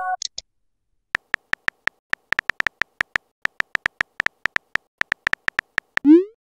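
Phone keyboard tap clicks as a text message is typed, an irregular run of about three to five taps a second. Near the end comes a short rising swoop, the message-send sound. At the very start the tail of a chime dies away.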